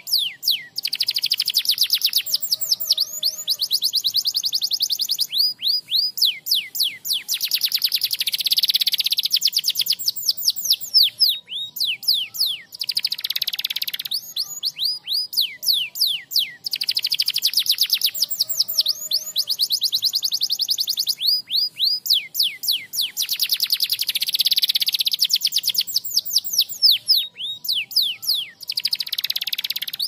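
Domestic canary singing: long, very rapid trills of high, quickly falling notes, with a denser trill phrase coming round again about every five to six seconds.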